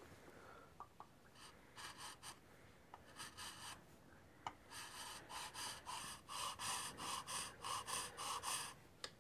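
Hand file rasping on the wooden riser of an atlatl, fine-tuning it so the dart lines up: a few scattered strokes at first, then a steady run of about three strokes a second through the second half.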